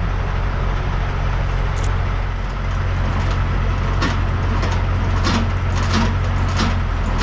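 Semi-trailer landing-gear crank being turned by hand, with a click and a short squeak on each turn from about four seconds in, roughly one every 0.6 seconds. Under it, the steady low drone of an idling diesel truck.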